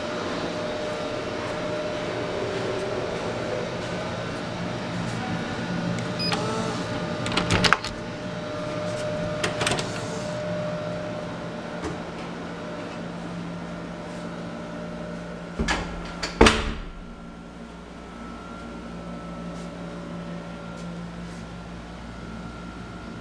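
A steady mechanical hum, such as ventilation or air-conditioning, with a few sharp clicks and knocks, the loudest about sixteen seconds in.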